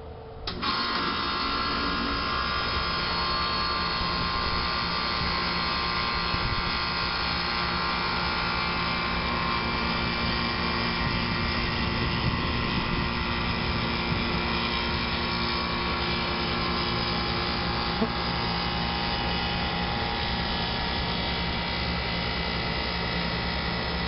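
York 2.5-ton straight-cool central air conditioner's outdoor unit starting up about half a second in, its compressor and condenser fan coming on together, then running steadily.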